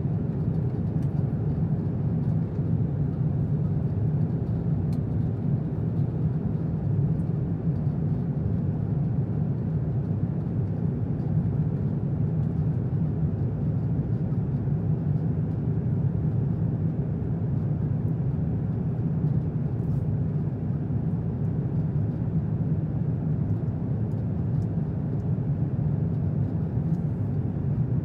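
Steady passenger-cabin noise aboard an Airbus A350-900: an even low rush of airflow and engine sound with no change in level or pitch.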